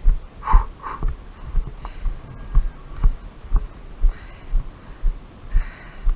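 Footsteps of the player wearing the camera, walking: dull low thumps about twice a second, carried through the body to the camera.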